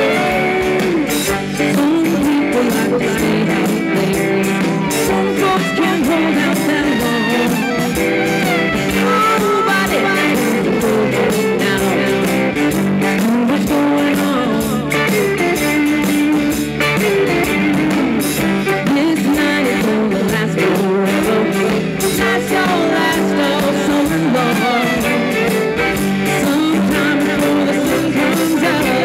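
Live rock band playing an instrumental break, with fiddle over electric guitar, bass guitar and drums.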